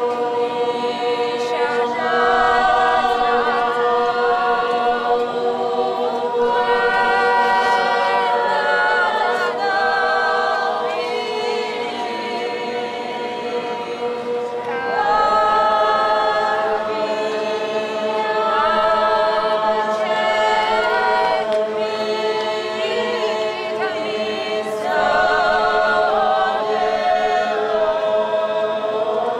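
A group of voices singing a traditional Georgian polyphonic song a cappella, the upper voices moving over a steady held drone. New phrases swell in about halfway through and again near the end.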